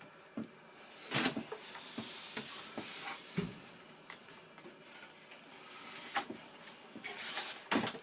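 Scattered small clicks, knocks and rustles of hands handling the parts of a foam RC model aircraft on the workbench, loudest about a second in and near the end.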